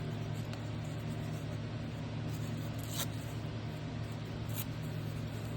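Steady low hum with a few faint, short clicks, the clearest about three seconds in and another near the end.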